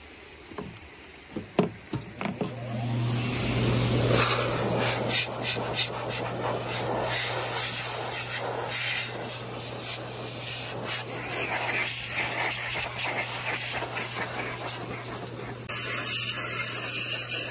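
Trailhead compressed-air dust blower, which starts about two and a half seconds in after a few clicks. It runs as a steady motor hum under a loud, wavering hiss of air from the hose nozzle as it blows dirt off hiking shoes.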